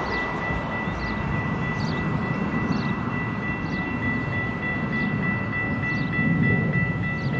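A train rolling past on the rails: a low rumble from the wheels and cars, with steady high tones over it and a faint tick a little under once a second. The rumble grows a bit louder near the end, and the high tones stop just before it ends.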